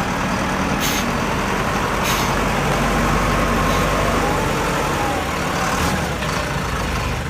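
Truck engine running amid heavy road-vehicle noise, with two short hisses about one and two seconds in.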